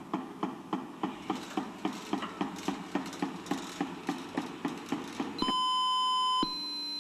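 Small wheeled robot clicking steadily, about four clicks a second. About five seconds in, the clicking gives way to a loud continuous electronic beep that changes pitch after a second: the robot's battery alert, sounded when its battery is running low.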